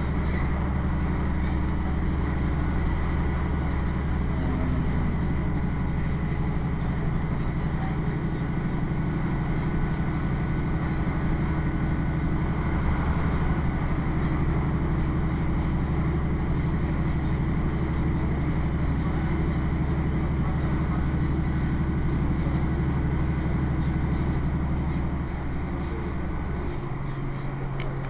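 Diesel passenger train heard from inside the carriage while running: a steady low engine drone under even wheel and track rumble. Near the end the low drone drops away and the sound grows a little quieter.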